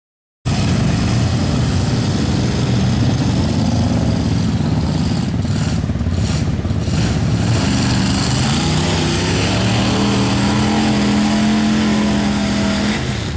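Lifted mud truck's engine running hard at high revs as it plows through deep water and mud. The engine pitch climbs steadily over the last few seconds, then drops off near the end.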